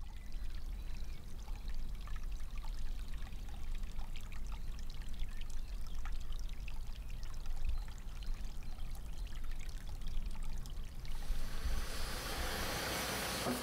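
Steady rushing, trickling noise like running water, peppered with small clicks over a low rumble. About eleven seconds in, a louder, brighter hiss comes in.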